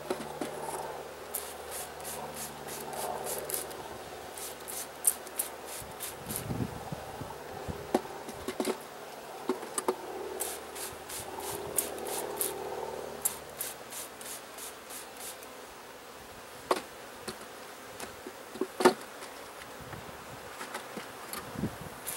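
Honeybees buzzing around the open hive in a steady drone that eases after about thirteen seconds, with frequent short scratchy clicks and rubs from hands working the wooden frames in the hive box.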